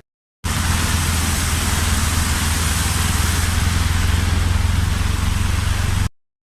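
Heavy monsoon downpour: a loud, steady rush of rain with a low rumble underneath, cutting in about half a second in and stopping abruptly near the end.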